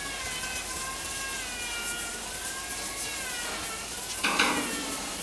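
Stiff bristle broom scrubbing soapy water across a wooden slab, a steady hiss, with a wavering pitched tone running through it. A short, loud burst about four seconds in.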